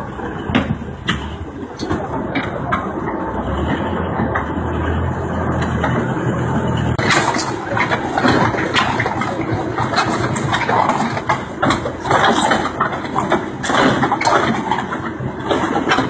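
Concrete mixer-pump machinery running with a low steady hum and scattered knocks; about seven seconds in the sound turns louder and harsher, with dense clattering.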